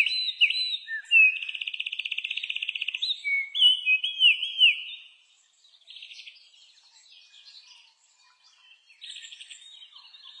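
Bird chirping: quick down-slurred chirps and a fast, rattling trill of about eighteen notes a second. It drops to fainter, scattered chirps about halfway, and a short trill returns near the end.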